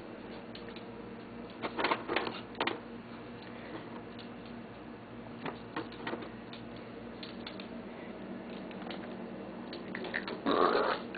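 Chihuahuas eating treats: scattered light clicks and taps, then near the end a sudden louder, rough sound.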